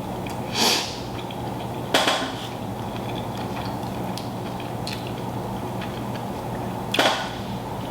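Eating and handling of a seafood boil: three short crackling, rustling bursts (about half a second in, at two seconds and near the end) with a few faint clicks between them, over a steady low hum.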